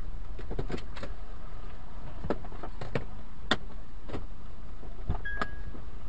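Steady low rumble of a stopped car running, heard from its cabin, with about ten irregular sharp clicks and knocks. A short high beep sounds a little over five seconds in.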